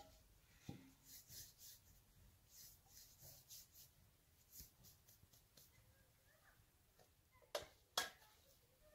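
Quiet handling of cookware and dishes: faint scratchy rustles and light scrapes, then two sharp clinks near the end as a metal pot is picked up.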